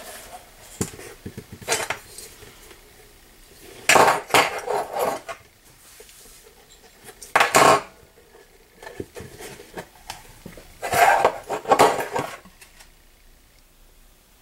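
Handling noise from a stiff vegetable-tanned leather tankard being turned, pressed and rubbed on a workbench: scattered clicks, then three louder scraping, clattering bursts about a second long.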